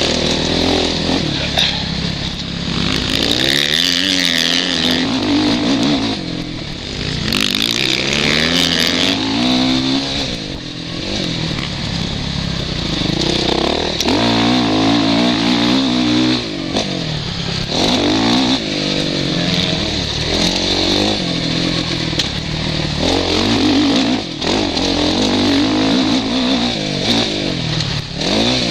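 Suzuki RM-Z450 four-stroke single-cylinder motocross engine, revving up and down over and over as the rider accelerates, shifts and backs off through the track's sections. There is wind rush on the helmet-mounted microphone, strongest for a couple of seconds around the 3- and 8-second marks.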